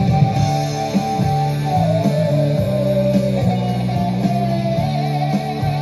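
Rock music with guitar and bass playing through loudspeakers driven by a McIntosh MC2205 stereo power amplifier. A held guitar note slides down in pitch about two seconds in and comes back up a second later.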